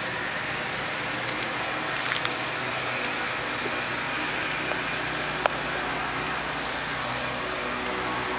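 Steady outdoor background noise with a faint low hum, broken by a few sharp clicks, the loudest about five and a half seconds in.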